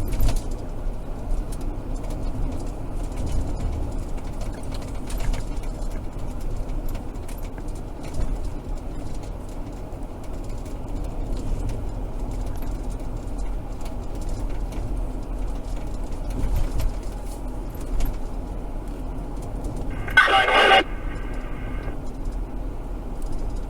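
Steady low rumble and hum of a car running, heard from inside the cabin, with a brief pitched sound about twenty seconds in.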